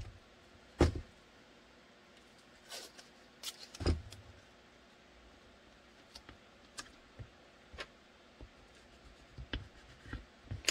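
Hands pressing and smoothing blue painter's tape around a taped-up pistol on a cutting mat: scattered soft taps, crinkles and handling clicks, with two louder knocks about a second in and just before four seconds.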